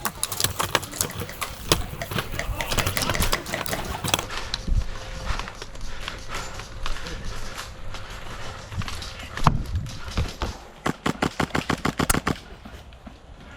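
Airsoft guns firing: scattered shots through the first few seconds, then a rapid burst of automatic fire about eleven seconds in.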